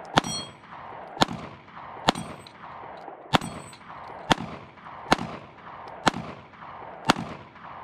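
Handgun fired eight times at a steady pace of about one shot a second. Several of the shots are followed by the high ring of a steel plate target being hit.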